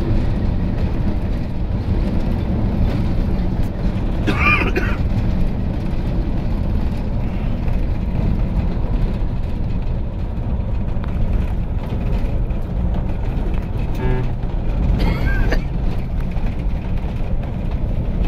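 Bus engine and road noise heard from inside the cab while driving: a steady low rumble. Two brief higher sounds cut in, about four and fifteen seconds in.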